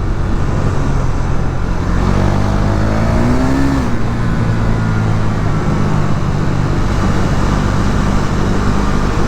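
KTM Duke 390's single-cylinder engine running under way. The revs climb a little about three seconds in, then fall back near four seconds.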